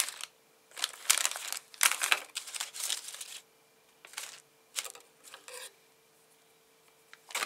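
Metallised anti-static bags crinkling as they are handled and shuffled on a bench, in a few irregular bursts, the longest in the first half.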